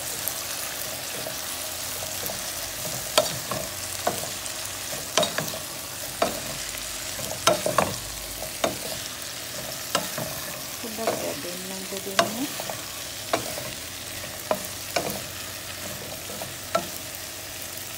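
Sliced snake gourd, potato and spices frying in oil in a pot with a steady sizzle, stirred with a wooden spoon that knocks and scrapes against the pot at irregular moments, about once a second.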